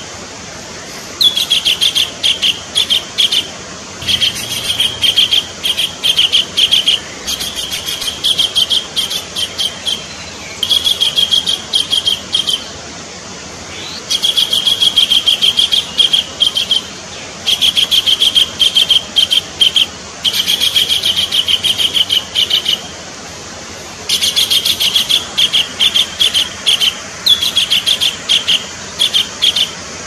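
Collared kingfisher calling: bouts of rapid, harsh repeated notes, each bout lasting two to three seconds, broken by short pauses, over a steady background hiss.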